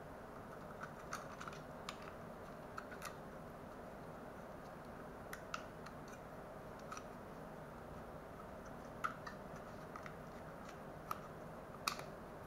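Plastic drone body and cardboard packaging being handled: scattered, irregular light clicks and taps over a steady background hiss, with the sharpest clicks about nine seconds in and near the end.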